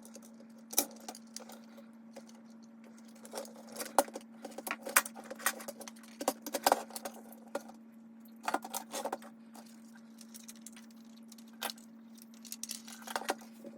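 Irregular clicks, taps and rattles of a screwdriver and small screws working on a plastic toy ghost trap being taken apart, over a faint steady hum.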